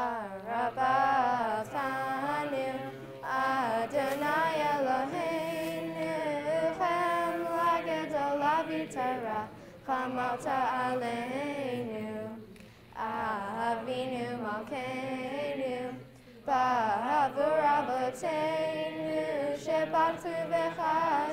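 Two girls singing a Hebrew prayer together, unaccompanied, in long held notes, with a few short breaks for breath.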